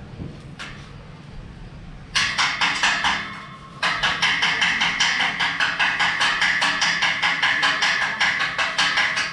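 Rapid hammer strikes on metal at a stainless railing post, about four a second with a ringing tone, starting about two seconds in, breaking off for about a second, then carrying on.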